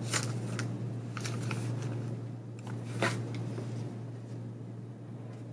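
Paper swatch cards handled and set down on a tabletop: a few short papery rustles and taps, the sharpest about three seconds in, over a steady low hum.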